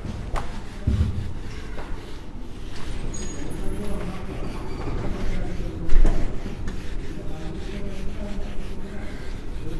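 Whiteboard duster rubbing across a whiteboard, wiping off marker writing, with a sharp knock about six seconds in.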